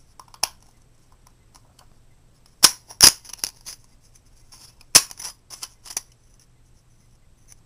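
Sharp clicks and crinkles of thin aluminum soda-can stove pieces flexing as they are handled and pressed together, in two short clusters, about three seconds in and about five seconds in.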